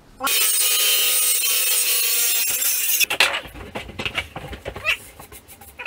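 Circular saw starting and cutting across a wooden butcher-block countertop, a loud, steady whine for about three seconds that then stops with a falling pitch. Then irregular knocks and scraping of wood as the cut-off piece is handled.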